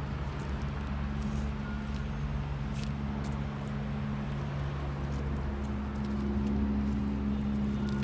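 Steady low hum of an idling engine, a little louder from about five seconds in, with a few faint clicks.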